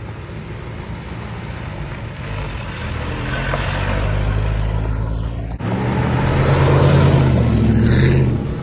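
Car engine running under acceleration, getting louder over the first few seconds. It breaks off suddenly about five and a half seconds in and comes back louder, with a brief wavering higher tone near the end.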